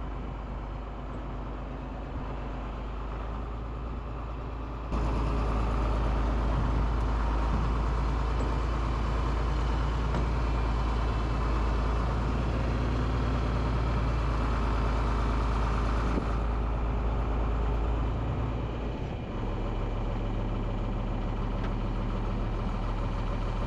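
John Deere 4230 tractor's six-cylinder diesel engine running steadily, getting louder about five seconds in and settling back down near the end.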